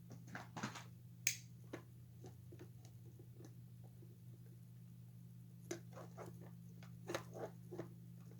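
Small plastic clicks and taps of parts of a novelty animatronic singing figure being handled and pried apart, scattered irregularly with one sharper click about a second in and a cluster near the end, over a steady low electrical hum.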